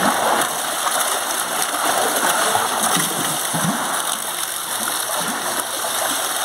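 Water splashing and pouring in an elephant's bathing tank: a steady jet of water falls into the pool while the elephant moves and splashes in it.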